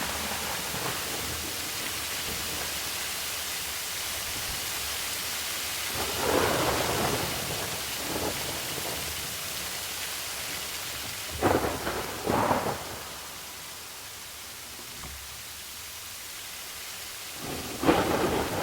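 Thunderstorm: steady rain hissing throughout, with peals of thunder about six seconds in, twice close together around twelve seconds, and again near the end.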